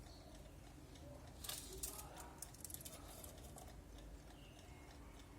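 Faint quick clicks from a large German alarm clock, bunched together from about one and a half to three seconds in.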